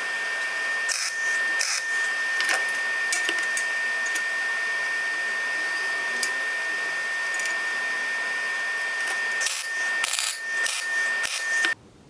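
Clinks and knocks of steel pieces being handled and set in place on a homemade vise jaw, over a steady hiss with a high steady whine; a quick cluster of clinks comes near the end, then the sound cuts off abruptly.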